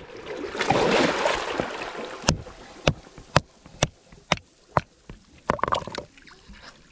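A hand-held rock knocking on oysters growing on a boulder to crack the shells open: about eight sharp knocks, roughly two a second, starting about two seconds in. A short rushing noise comes before them.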